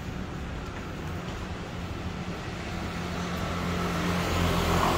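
Street traffic: a motor vehicle's engine running with a steady low hum, growing louder over the last couple of seconds as it draws near.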